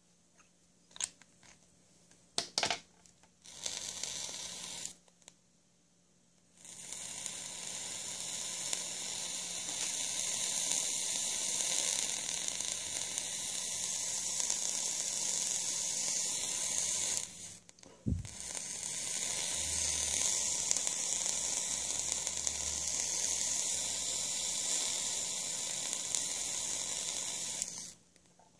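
E-liquid sizzling on the heated coil and mesh wick of a rebuildable vape atomizer as the coil is fired: a short burst about four seconds in, then a long steady sizzle that breaks off briefly with a thump about two-thirds of the way through and resumes until just before the end. A few light handling clicks come before it.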